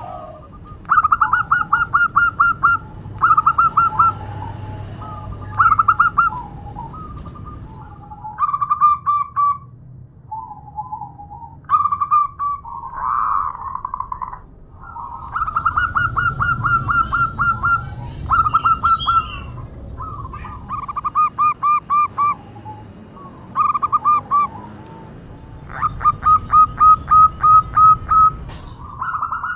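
Female zebra dove (perkutut) calling in repeated bursts of quick staccato cooing notes, about five a second. Each burst lasts one to two seconds, with short pauses between. This is a hen's call to draw a male.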